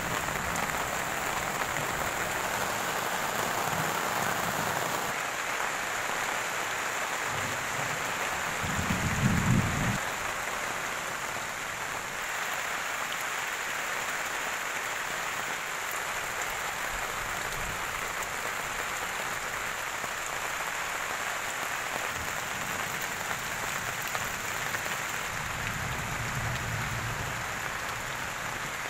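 Steady rain of a summer shower falling on trees, foliage and bare earth, an even hiss throughout. A brief louder low rumble comes about nine seconds in, and a softer one near the end.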